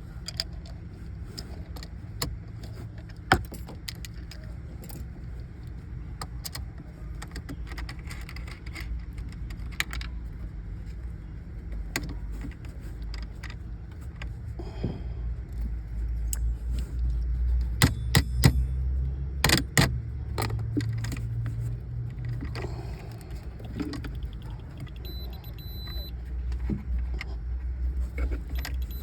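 Scattered metallic clicks and clinks of hand tools and terminal hardware as a battery kill switch is fitted onto a car battery post, loudest in a cluster about two-thirds of the way through, over a steady low rumble.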